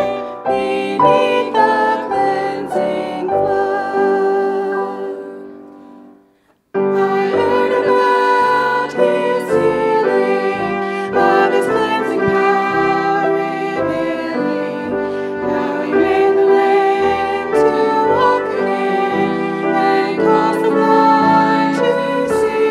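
A hymn sung by a group of singers with piano accompaniment. The music dies away to a brief silence about six seconds in, then starts again abruptly.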